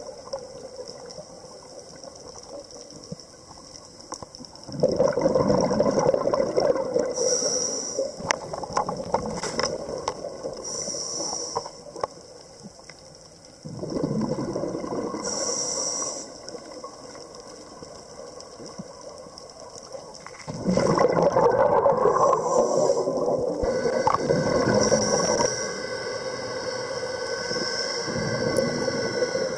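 Scuba diver breathing through a regulator underwater: three long bursts of exhaled bubbles rumbling and gurgling, with short hisses of inhalation between them.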